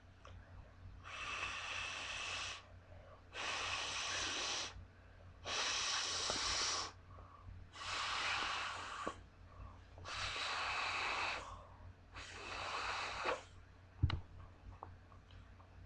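Breath blown hard into the valve of an inflatable ball, six long rushing puffs about two seconds apart with short pauses between. A single sharp knock about fourteen seconds in.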